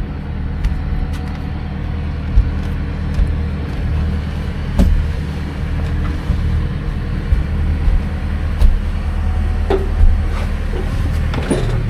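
Sailboat's inboard diesel engine running at a steady low hum, with several sharp knocks and clicks from deck gear as the boom vang and lines are worked.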